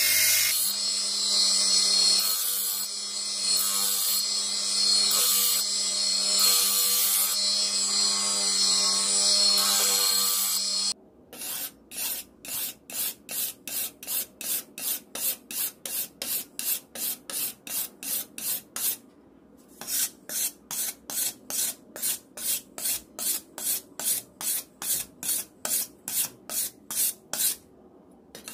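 Bench grinder running with a steel cleaver blade pressed against its wheel, the grinding noise swelling and dipping as the blade is worked. About eleven seconds in this gives way to hand-sharpening strokes along the edge of the blade clamped in a vise, a steady rasp of about two strokes a second with two short pauses.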